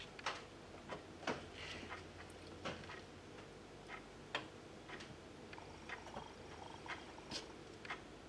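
Irregular light clicks and taps of small plastic servo-lead plugs being handled and pushed onto header pins, a dozen or so, with a couple of sharper clicks among them.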